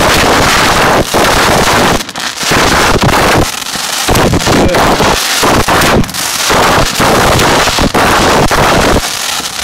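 Fireworks mortars firing at close range: a near-continuous barrage of launch blasts and shell bursts, loud enough to overload the recording, with a few brief lulls.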